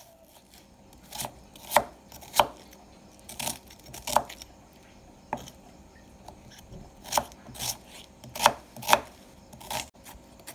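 Kitchen knife chopping an onion on a cutting board: sharp, irregular knocks of the blade on the board, about one or two a second, with a short pause midway.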